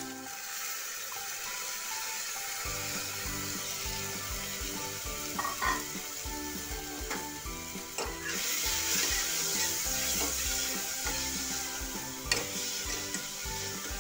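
Chana dal sizzling in hot oil in an aluminium pressure cooker as it is stirred with a steel ladle, with a few sharp clinks of the ladle on the pot. The sizzle grows louder about eight seconds in.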